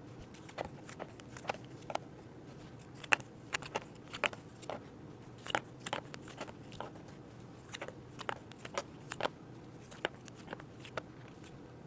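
Cardboard game tiles being set down one by one on a game board: a scatter of light, irregular clicks and taps, the sharpest about three seconds in.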